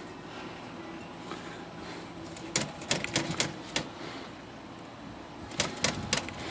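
Sharp mechanical clicks from an L.C. Smith Corona flat-top portable typewriter's mechanism, in two quick runs: about five clicks midway and about four more near the end.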